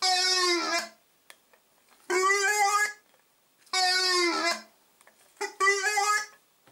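A dog howling in a series of drawn-out calls, each just under a second long and about two seconds apart, the pitch dipping at the end of each. There are four long calls, with a short yelp just before the last.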